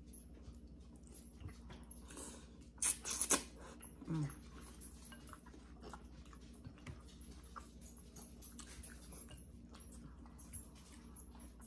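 Quiet noodle eating: one loud slurp about three seconds in, then a brief pitched whine, with faint clicks of chopsticks and spoons against glass bowls.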